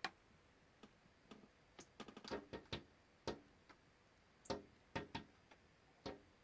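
A small bird tapping its beak against window glass: sharp, irregular taps, some in quick runs of several taps about two to three seconds in.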